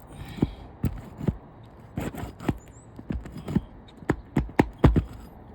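Irregular sharp taps and knocks on an asphalt shingle roof as shingles are worked on, about a dozen over a few seconds, with the loudest one near the end.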